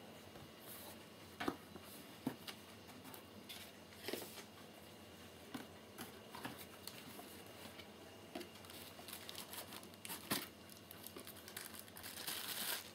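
Unpacking noise: cardboard flaps knocking and plastic wrapping rustling, with scattered small clicks. A longer stretch of plastic crinkling near the end comes as the kettle's bagged power base is lifted out.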